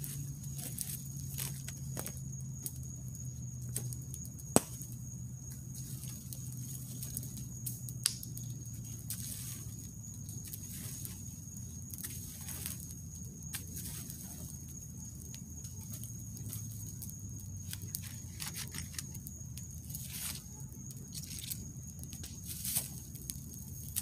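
Wood campfire crackling, with irregular sharp snaps and pops and one loud pop about four and a half seconds in.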